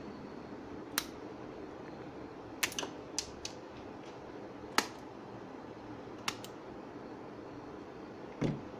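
Scattered sharp clicks and taps of hard plastic and tools being handled, several close together around the third second, with a duller knock near the end, over a steady low hiss.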